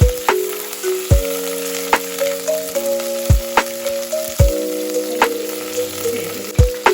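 Food sizzling as it fries in a pan, over background music with a steady beat and sustained notes.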